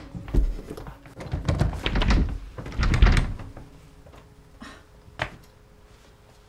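A run of heavy indoor thuds, like hurried footsteps, and a door thudding shut about three seconds in, then a couple of faint clicks.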